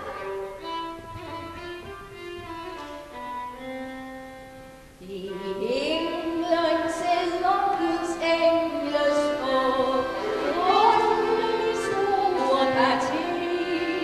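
A violin plays a slow introduction of held notes, and about five seconds in a woman begins singing a song with the violin accompanying her, louder from there on.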